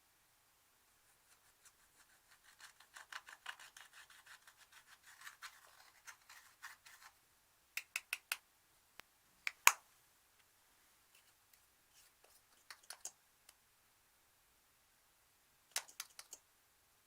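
Slime being squeezed and stretched by hand, giving a fast run of small crackles and pops for a few seconds, then a few separate sharper pops, the loudest about ten seconds in.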